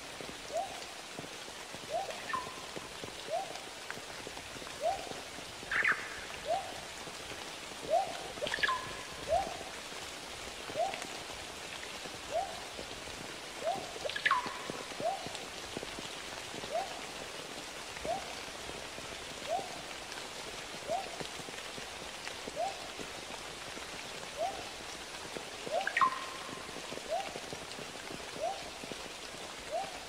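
Steady rush of river water, with a water drop plinking into water about every second and a half. A bird gives a few short falling whistled calls over it.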